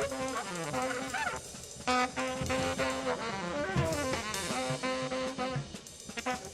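Background music: jazzy brass and saxophone over a drum kit with a steady beat.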